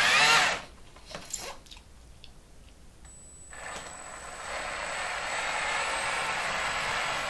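Intro music ends about half a second in. After a few faint ticks, the RC semi truck's electric drive runs as it maneuvers: a steady whirring hiss with a thin high whine, fading in over about a second.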